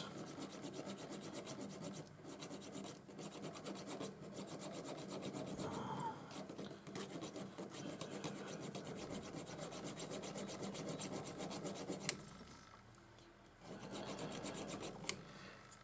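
Needle file scraping back and forth in short, rapid strokes on a broken stud lodged in a thread chaser, cutting a slit between the chaser's slots to split the stud out. The filing stops for about a second near the end, with a couple of sharp clicks.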